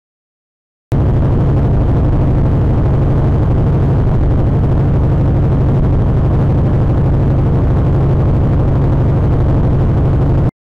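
Car cabin driving noise as picked up by a cheap rear-view-mirror dash cam's built-in microphone: a loud, steady low rumble with a hum, in terrible audio quality. It starts abruptly about a second in and cuts off abruptly just before the end.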